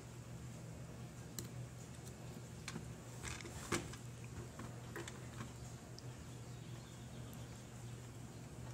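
Faint, scattered clicks and small scrapes of a screwdriver driving small screws through a circuit board into a plastic robot chassis, with fingers handling the parts; the sharpest click comes a little under four seconds in.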